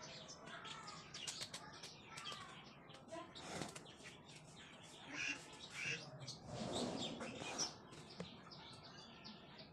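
Cloth and embroidery thread rustling as a needle is worked through fabric stretched in a hoop and the thread is drawn through, with a longer swish of thread being pulled about seven seconds in. A few short chirps sound in the background.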